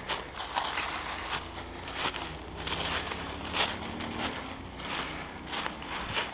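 Footsteps crunching through dry fallen leaves at an uneven walking pace, with the leaves crackling and rustling between steps.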